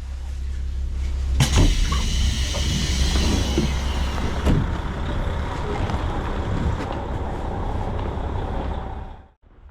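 Train at rest with a steady low engine rumble; about a second and a half in, a sudden hiss of compressed air begins and fades over a few seconds, and a sharp knock follows a few seconds later. The sound cuts off abruptly near the end.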